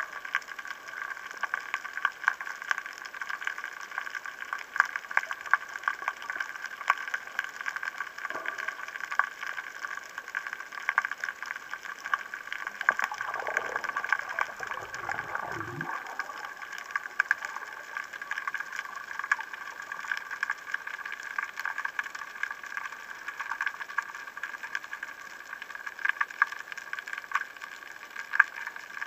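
Underwater ambience heard through a camera housing: a constant crackle of sharp clicks over a steady hiss. A lower sound slides down in pitch for a few seconds about halfway through.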